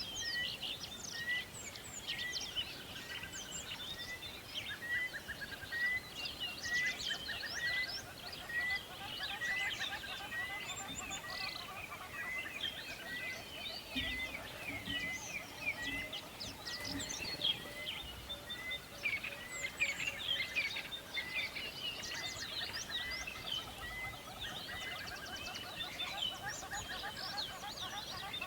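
Morning chorus of many songbirds chirping and trilling over one another, while one bird repeats a short high chirp about three times every two seconds for most of the stretch.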